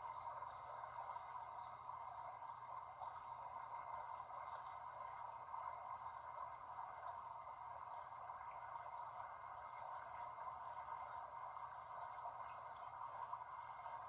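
Mountain stream water flowing and babbling steadily.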